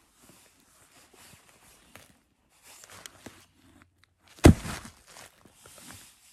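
Rustling and scraping of nylon clothing and boot fabric as winter boots are pulled on, with one heavy thump about four and a half seconds in.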